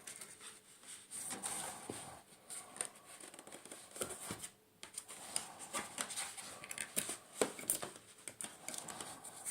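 Packaging being handled during an unboxing: irregular rustling, scraping and small clicks as items are lifted out of the box.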